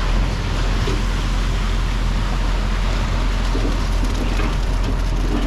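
Concrete agitator truck running steadily: a low engine hum under an even rushing noise.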